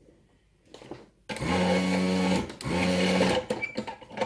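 Electric desoldering gun's vacuum pump running twice, each a steady hum of about a second that spins up and winds down, sucking old solder off circuit-board pads.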